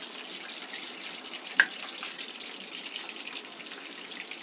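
Hot oil sizzling and crackling in a kadhai as chicken lollipops deep-fry for a second time to crisp the coating. One sharp metallic clink about a second and a half in.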